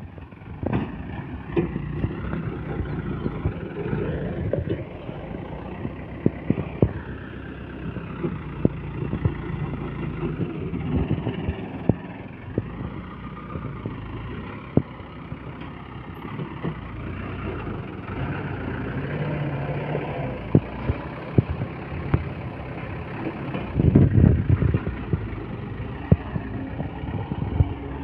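Mitsubishi dump truck's diesel engine running at low revs, with a brief, louder rev near the end. Short sharp knocks and rattles come now and then over the engine.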